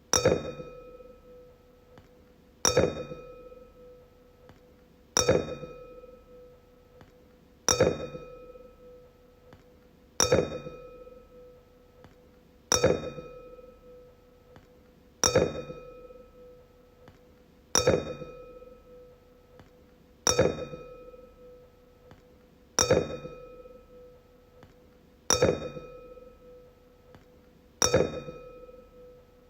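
A wine glass struck about every two and a half seconds, twelve times. Each strike rings out in one clear tone with fainter higher overtones, fading slowly until the next strike.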